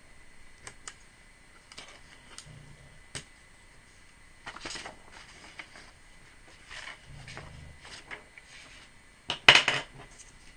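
Paper and card being handled on a tabletop: light scratches and clicks, short rustles as sheets are lifted and moved, and one louder rustle about nine and a half seconds in.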